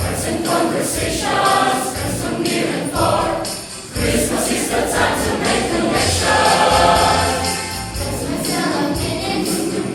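Choir singing an upbeat Christmas cantata number over instrumental accompaniment, with jingle bells shaken in rhythm. The music drops briefly just before the middle, then comes back in.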